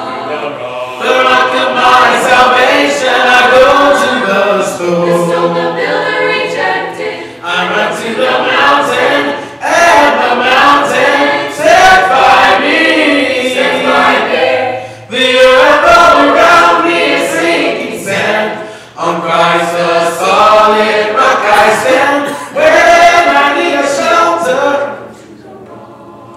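Mixed-voice teenage choir singing a gospel song, in sung phrases broken by short breaths, dropping away to a quiet lull near the end.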